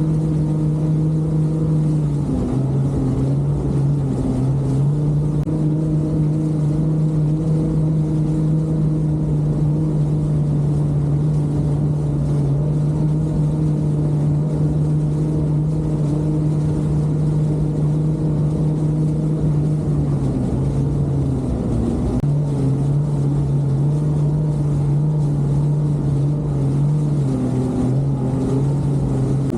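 Jet ski engine running steadily at speed. Its pitch dips a few times, about two seconds in and again around twenty seconds in, then picks back up.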